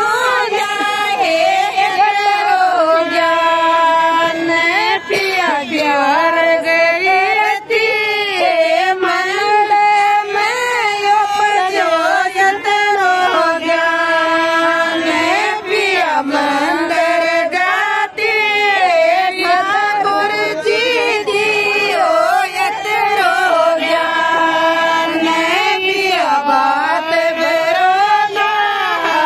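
Group of women singing a Rajasthani bhat geet together, many voices on one melody in long held notes that slide between pitches.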